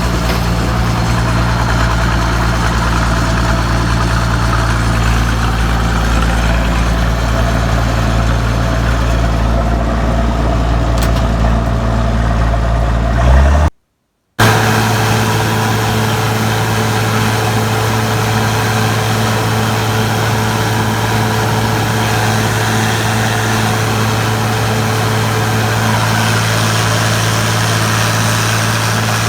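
Engine of large harvest machinery running steadily at a constant speed with an even hum. A sudden cut to silence lasts about half a second around fourteen seconds in, after which the steady hum goes on with less deep rumble.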